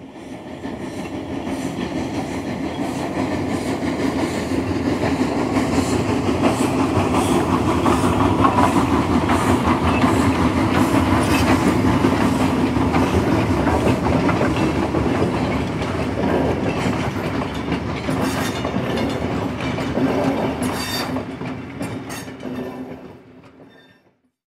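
O-gauge model passenger train running on three-rail track: a steady rumble with light clicking. It swells in over the first couple of seconds and fades out near the end.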